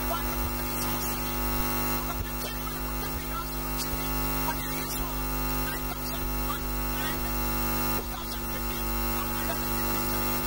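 Steady electrical mains hum and buzz, many fixed tones stacked high through the range over a constant background hiss, with faint indistinct sounds underneath.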